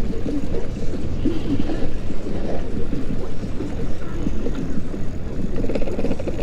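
Wind rushing over the microphone of a moving e-bike: a steady, loud, low rumble.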